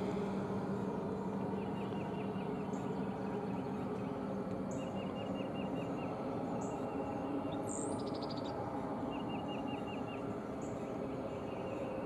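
Birds singing: short runs of quick, even notes repeated every few seconds, with a higher call now and then. Underneath is a steady background hum that fades about halfway through.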